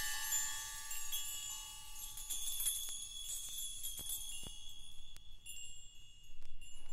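Jazz percussion of bells and chimes: lower chime tones ring and die away, higher ones are struck about midway and ring on, with a handful of light, sharp taps scattered through.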